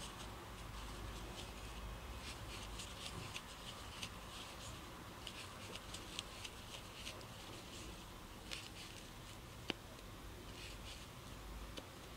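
Faint rustling of yarn and soft ticks of a crochet hook as double crochet stitches are worked, with one sharper click about ten seconds in.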